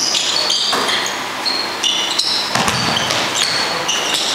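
Basketball bouncing and players' sneakers squeaking on a gym floor, with many short high squeaks one after another in a large echoing hall.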